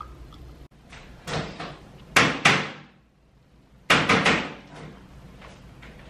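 Hard objects knocking and clattering, sharp and short: a single knock about a second in, two close together near two seconds, then after a brief hush a quick run of four or five knocks at about four seconds.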